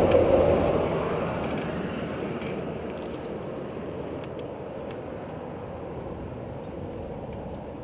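A vehicle going past on the road, loudest at the start and fading steadily away over several seconds.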